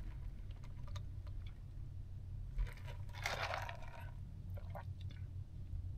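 A man drinking an iced oat-milk drink from a plastic cup: sipping and swallowing, then small mouth and lip sounds as he tastes it, with one brief louder noisy sound about three seconds in. A low steady hum runs underneath.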